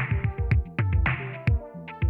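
Electronic background music with a steady drum-machine beat and synthesizer chords.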